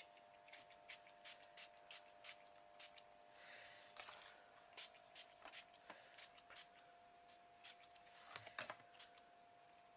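Faint, quick clicks, about three a second, with a brief soft hiss around three and a half seconds in: a small pump spray bottle of pink ink being worked over a canvas. A faint steady hum runs underneath.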